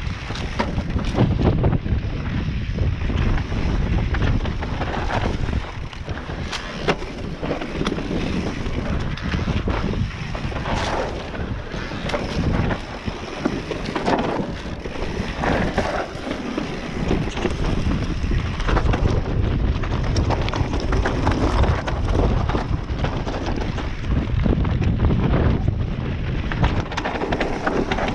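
Wind buffeting the microphone as an electric enduro mountain bike rides downhill, with frequent knocks and rattles from the bike over rough ground.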